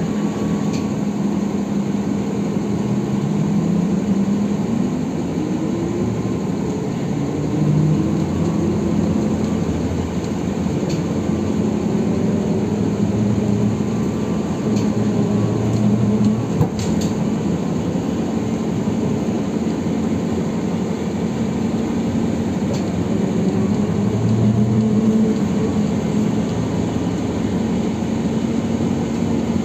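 Inside a moving ZiU-682B trolleybus: the electric traction motor's whine rises in pitch as it speeds up, about three seconds in and again a few seconds later, over a steady hum and road and rattle noise from the body.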